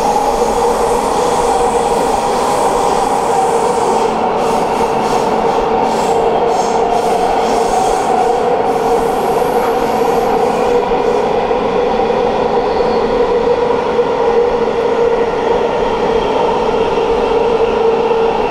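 Metro train running at speed through a tunnel, heard from inside the car: a loud, steady rumble with a whine held on two pitches that sag slightly.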